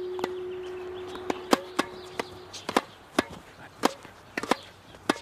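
A series of about a dozen sharp, irregularly spaced knocks. A steady ringing tone fades under the first half and dies away about two and a half seconds in.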